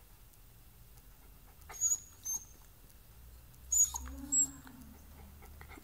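A squeaky dog toy squeaking as it is pressed at the dog's mouth: four short, high squeaks in two pairs about two seconds apart, with a brief low hum-like tone between the last two.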